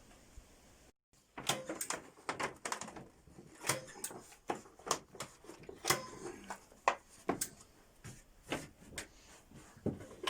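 A run of irregular sharp knocks and clicks, several a second, starting about a second and a half in.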